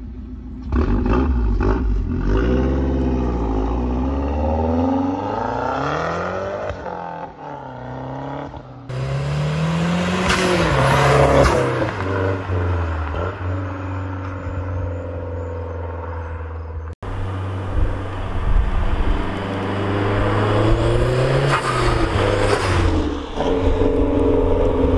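Mazdaspeed 3's turbocharged 2.3-litre four-cylinder through a catted downpipe and a non-resonated Magnaflow cat-back exhaust, revving and accelerating, its pitch rising and falling again and again. The sound changes abruptly about a second in, about nine seconds in and about seventeen seconds in as separate clips follow one another.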